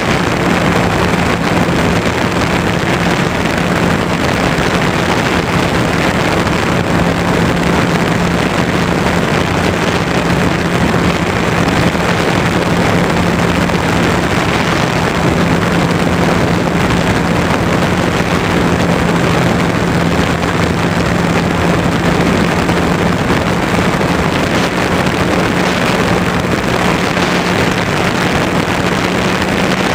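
Easy Glider Pro RC plane's electric motor and propeller running steadily in flight, a constant hum that edges up slightly in pitch near the end, under heavy wind rush over the onboard camera.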